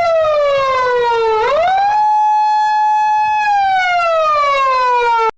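Police car siren wailing. The tone falls, rises quickly about a second and a half in, holds steady for about a second and a half, then slowly falls again and cuts off suddenly near the end.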